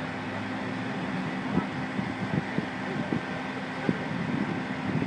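A vehicle engine running steadily in the background, with scattered short knocks that grow busier near the end.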